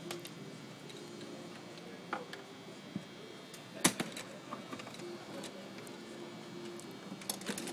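Sharp knocks and clacks of stiff plastic boat panels being fitted into a folding Porta-Bote hull, a few scattered single knocks with the loudest about four seconds in and a quick cluster near the end, over the steady murmur of a crowded hall.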